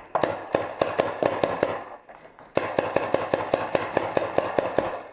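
Paintball marker firing rapidly in two strings of shots, about seven a second, with a short pause around two seconds in.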